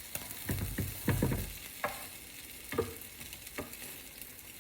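Oil sizzling in a frying pan as a burger with its bun heats, with about five light knocks and taps spread through it.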